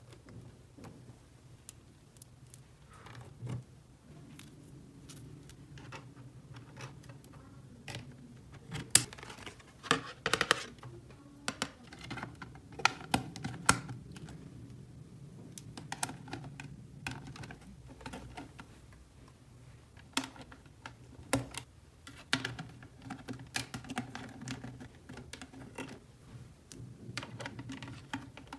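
Irregular light clicks and taps, as of small hard plastic toy pieces being handled and set down, over a faint steady low hum.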